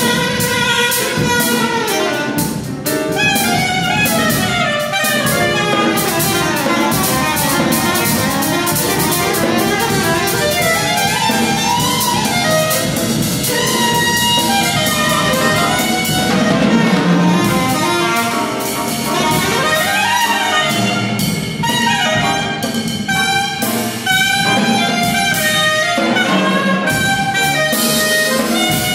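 Live jazz: a soprano saxophone playing fast, busy lines over a small group, with drums and cymbals ticking steadily underneath.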